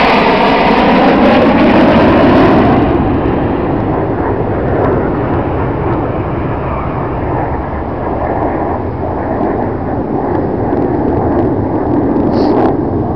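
Red Arrows' BAE Hawk T1 jets flying past in formation, their jet noise loud and shifting in tone during the first few seconds as they pass, then settling into a steadier, fading rumble.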